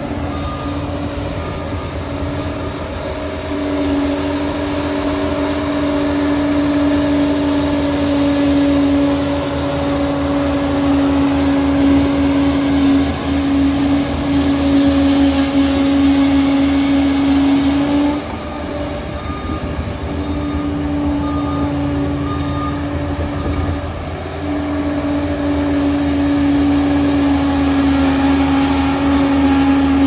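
Liebherr PR 746 crawler dozer working under load, pushing soil with its blade: loud steady engine noise with a strong, even whine on top. The whine cuts out briefly a little past halfway, returns, then drops once more a few seconds later before coming back.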